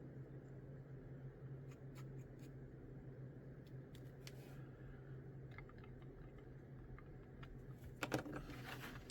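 Faint clicks and taps of small plastic model parts being handled and glued together, over a steady low hum. A brief, louder cluster of clicking and scraping comes about eight seconds in.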